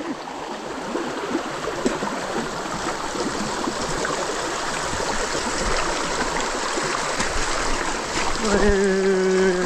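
Mountain bike rolling down a trail running with rainwater: a steady rush of flowing water with the tyres splashing through it. Near the end a person calls out in one long held voice.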